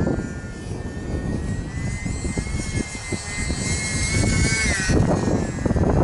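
Electric motor and propeller of a UMX Sbach 342 micro RC plane whining at a high, slightly rising pitch that falls away about five seconds in. Heavy wind buffets the microphone throughout.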